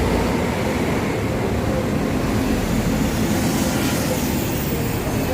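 Steady road-traffic noise from buses and other vehicles passing, a continuous rumble without distinct events.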